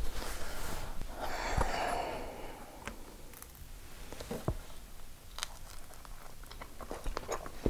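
Crisp pizza crust crackling in sharp little clicks as a slice is torn off and bitten into, with chewing. A soft breathy noise comes in the first couple of seconds.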